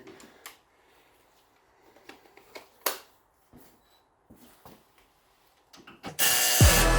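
A few scattered sharp clicks and light knocks of tools on a car's suspension bolts as they are tightened, with long quiet gaps between. Loud background music with a steady beat comes in about six seconds in.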